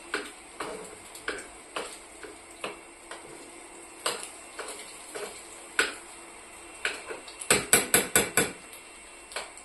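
A spoon clinking and scraping in a small pan of cooking eggs, a light clink every half second to second. Near the end comes a quick run of about six louder knocks.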